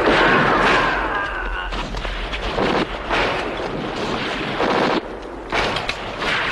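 Film battle sound effects: a dense din of gunfire and explosions, with several sudden blasts.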